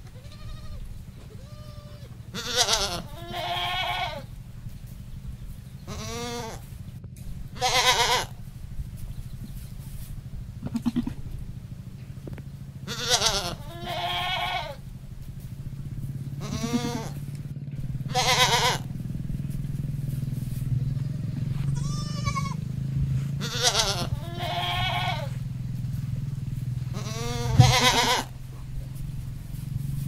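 Goats bleating over and over: about a dozen wavering calls, several in quick pairs, the loudest near the end. A steady low hum runs underneath.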